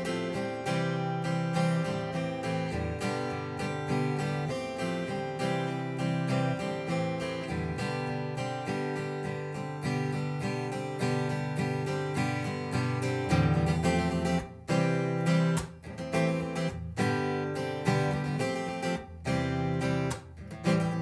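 Steel-string Martin acoustic guitar strummed in a steady rhythm through a repeating chord progression, played without a capo. In the last several seconds the strumming breaks into shorter strokes with brief gaps between chords.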